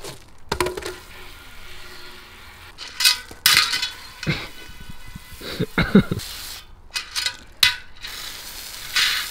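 Scrapes, clinks and knocks of a mountain bike rear wheel and tyre being handled and worked off the rim, a series of irregular short bursts with a few brief rubbery squeaks.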